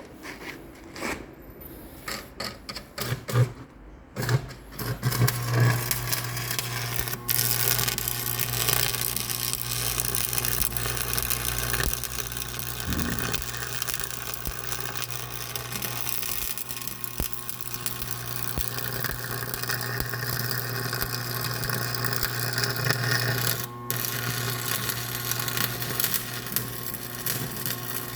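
A few scattered clicks, then about four seconds in a machine starts running with a steady low hum and a dense rattle, which runs on unchanged.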